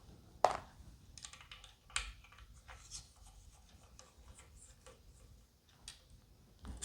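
Scattered light clicks and taps of small guitar hardware and tools being handled, with a sharper knock about half a second in and another at about two seconds.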